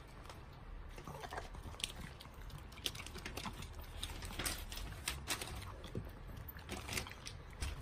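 Long-haired chihuahua eating the last few pieces of kibble from a bowl: irregular crunching and small clicks of teeth and kibble against the bowl.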